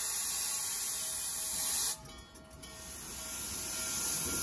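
Steam locomotive venting steam: a steady hiss that cuts off suddenly about two seconds in, then swells up again toward the end.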